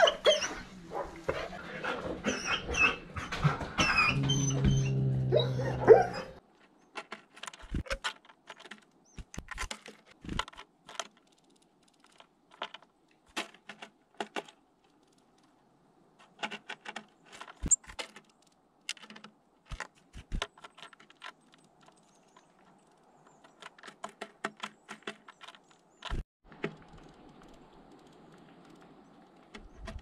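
A dog vocalising excitedly for about six seconds, then stopping abruptly. After that, scattered clusters of sharp taps and clicks as a small black-capped tit pecks at sunflower seeds on the wooden floor of a bird feeder.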